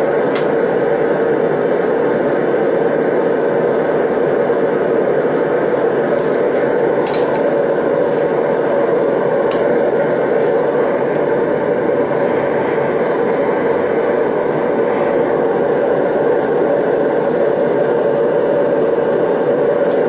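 TS8000 air/propane torch burning steadily, firing into a Kaowool-lined stacked brick furnace to heat a crucible: a steady rushing noise with a few faint ticks.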